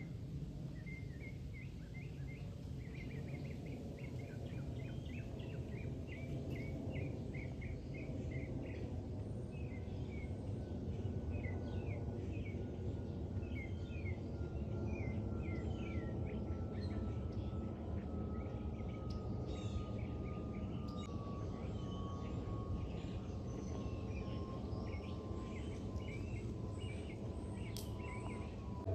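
Small birds chirping again and again, several short calls a second, over a steady low rumble. From about a third of the way in, a faint thin tone slowly falls in pitch.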